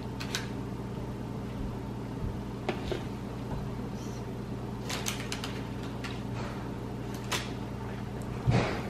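A spoon taps and scrapes against a plastic mixing bowl and a parchment-lined tray as coconut macaron mixture is scooped into small balls. The light clicks are scattered, with a louder knock near the end, over a steady low hum.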